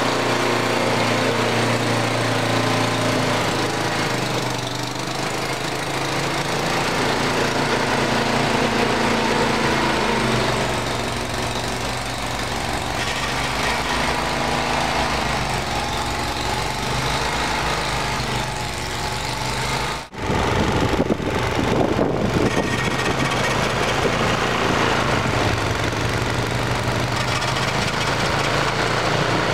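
Bolens 824A two-stage snowblower's engine running steadily while clearing snow. About twenty seconds in, the sound drops out briefly and then comes back noisier.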